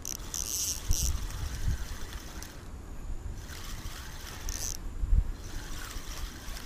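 Rod-and-reel handling noise while a hooked crucian carp is played in: uneven low knocks and rumble from the reel and rod. Short high-pitched chirps from crickets come twice.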